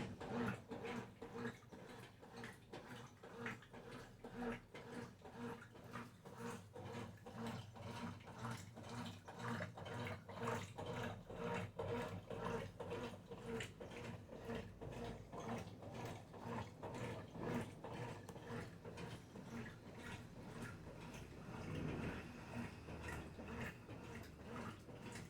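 Brastemp Ative 11 kg washing machine running: a steady motor hum under a regular, evenly repeating pulsing.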